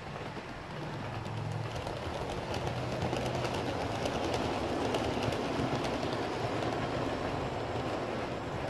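Model train running along the layout's track, a rumble with rapid clicking of wheels over the rail, growing louder over the first few seconds as it approaches and staying up as it passes.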